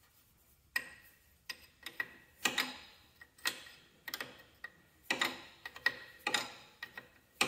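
Hand wrench clicking and clinking on a hydraulic line fitting at the control valve as the fitting is worked tight: sharp metal clicks, each with a short ring, coming irregularly one or two a second from about a second in.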